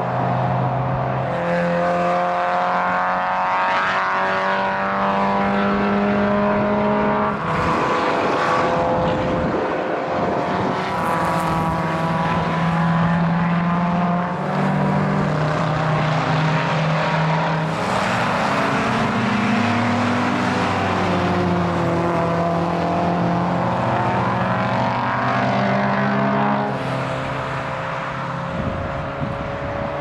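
Several historic racing cars running hard on a circuit, among them an FFR Cobra Daytona Coupé, their engine notes overlapping and stepping up and down in pitch as the cars drive away.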